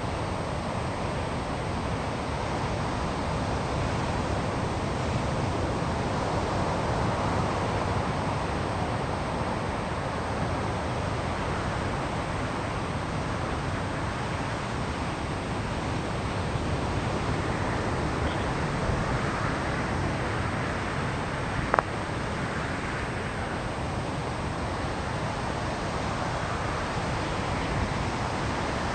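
Steady outdoor background noise, an even rush without a clear source. A single short click comes about three-quarters of the way through.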